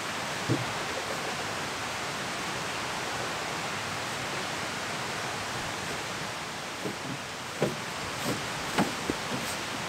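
Steady rushing hiss of the outdoors, with a soft thump about half a second in and, from about seven seconds in, a few low footfalls of rubber boots on the forest floor as a man walks off carrying a canoe.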